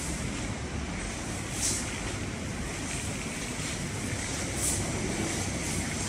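Steady mechanical din of a workshop floor of heavy-duty automatic programmable pattern sewing machines, with two short, high hisses.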